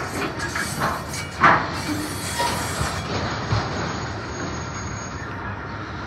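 Freight train of enclosed autorack cars rolling past, its steel wheels rumbling and clattering over the rail joints, with sharp clanks in the first second and a half, the loudest about a second and a half in. A thin, high, steady wheel squeal runs from about three seconds in to about five.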